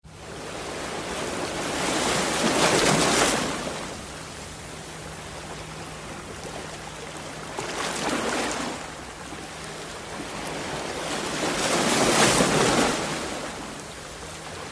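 Wind and water noise on an open lake, rising and falling in three long swells of a couple of seconds each, over a faint steady low hum.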